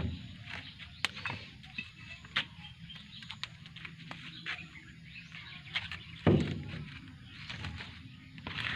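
Footsteps and scattered light knocks and clicks, with one heavier thump about six seconds in.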